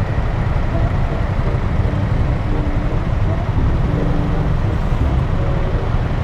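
Motorcycle engine running at low speed in stop-and-go traffic, a steady low rumble, with the surrounding traffic noise.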